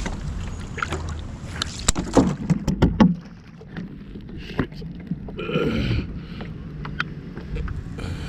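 Canal water splashing and slapping at the stone bank while the RC speedboat is handled at the water's edge. A cluster of sharp knocks and thumps comes about two to three seconds in. A short pitched sound follows a little past halfway.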